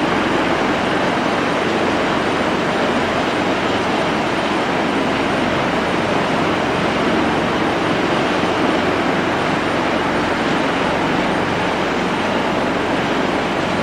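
Boeing 777-300ER's twin GE90 turbofan engines running at taxi power, a steady even jet noise as the airliner taxis.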